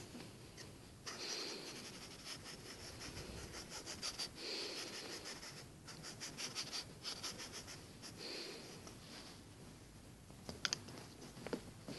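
A cat's claws scratching at a fabric blanket in quick, scratchy bursts of a second or two each. A few sharp clicks come near the end.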